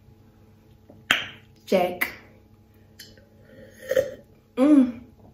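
A woman's voice in a few short, broken exclamations or vocal noises, with a sharp click and a short breathy hiss about a second in.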